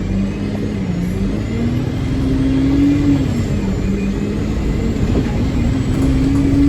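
Bus engine pulling hard under acceleration, louder as it goes. Its pitch climbs, falls back about three seconds in, then climbs again.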